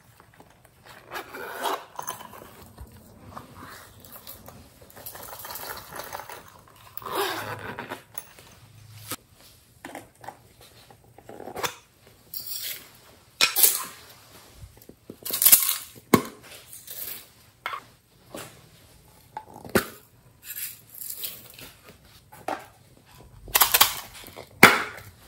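Hands handling and opening plastic slime containers and toppings trays, with irregular clicks, taps and short rustles, the louder ones near the middle and near the end.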